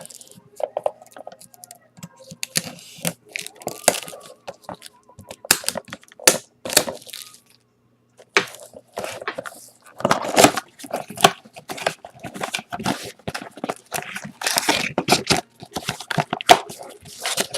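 Plastic wrapping being cut with a knife and torn, crinkling, off a cardboard box of trading cards, with the box being handled and opened. It comes as a run of irregular crackling and tearing noises.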